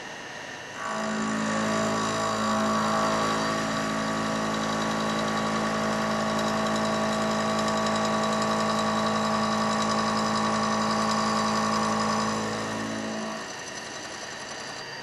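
Charpy specimen milling machine running its cutting cycle: the insert cutter head starts about a second in and runs with a steady hum while the rotating fixture feeds the samples past it, then stops near the end.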